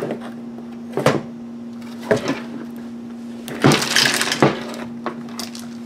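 Hard plastic housing parts of a disassembled car jump starter knocking and rattling as they are handled: single knocks about a second and two seconds in, then a longer clatter around the four-second mark as the casing is picked up and turned.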